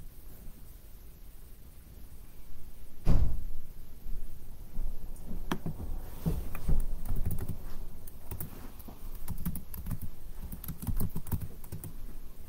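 Scattered taps and clicks on a laptop keyboard, irregular and coming in small runs, with a single dull thump about three seconds in.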